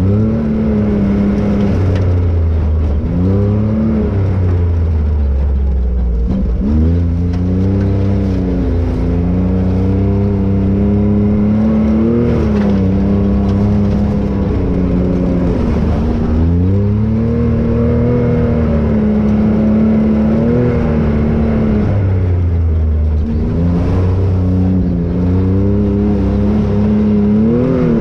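Can-Am Maverick X rc 1000 side-by-side's Rotax V-twin engine driving along a dirt trail, its pitch rising and falling again and again as the throttle is opened and eased off.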